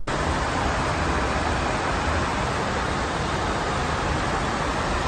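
Steady, even rushing noise of an airliner in flight, heard from inside the cockpit: airflow and engine noise with no distinct tones or knocks.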